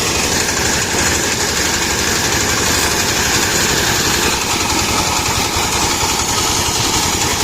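A farm machine's engine running steadily and loudly during the rice harvest.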